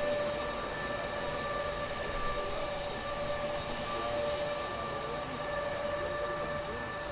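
Lockheed C-5 Galaxy's four turbofan engines running at low power on the ground: a steady, high whine in several pitches over a low rumble.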